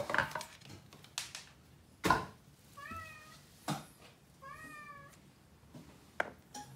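An animal giving two short, wavering calls, mixed with several sharp clicks and knocks, the loudest knock about two seconds in.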